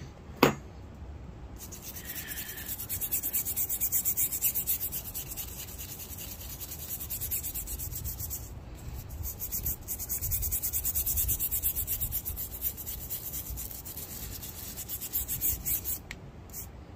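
Small brass wire brush scrubbing a steel file's teeth in quick back-and-forth strokes, clearing rust and residue after a vinegar soak, with a short break about halfway. A sharp click about half a second in is the loudest sound.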